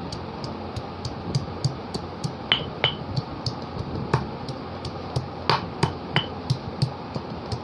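Pestle pounding ginger in a metal mortar: steady knocks about three a second, with a few ringing metallic clinks, the first two about two and a half seconds in.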